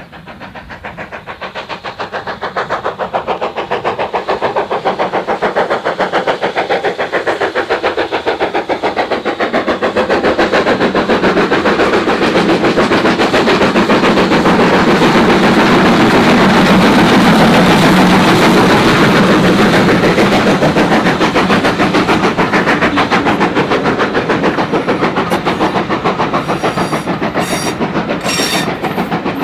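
BR Standard Class 4MT 4-6-0 steam locomotive No. 75014 passing under steam, its rapid, even exhaust beats growing louder as it approaches and loudest about halfway through. Near the end the coaches roll by, their wheels clicking over rail joints.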